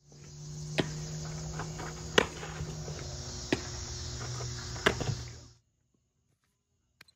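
Crickets chirping as a steady high drone over a low hum, with four sharp smacks of a softball landing in leather gloves, spaced about a second and a half apart. It all cuts off suddenly near the end.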